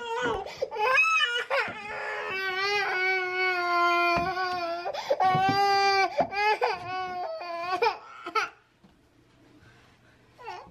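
A toddler crying in long, high-pitched cries that break off about eight and a half seconds in.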